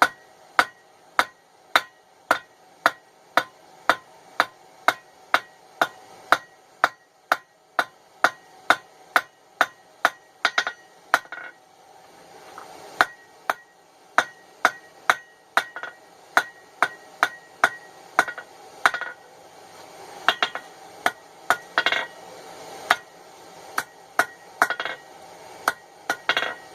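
Blacksmith's hammer striking steel on an anvil, about two blows a second, each with a short metallic ring, while forging miniature tongs. The blows turn less even about halfway through, when a faint steady hum joins.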